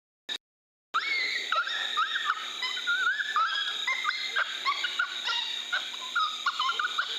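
A chorus of coyotes yipping and howling, many wavering, sliding high voices overlapping. It starts about a second in, after a silent gap.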